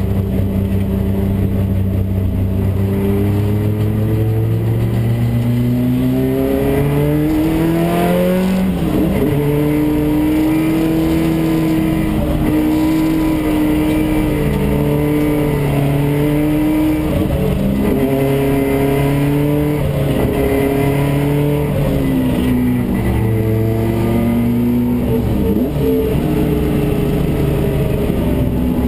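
Toyota AE86 Corolla race car's engine heard from inside the cockpit under racing load. The revs climb for about eight seconds, drop sharply, hold high on the straight, then dip and climb again several times near the end as the car shifts gears and brakes for the corners.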